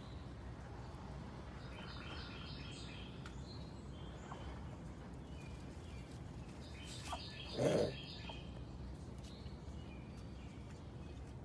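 Outdoor ambience: small birds chirping in quick trills in the background over a steady low hiss. One short, louder sound comes about eight seconds in.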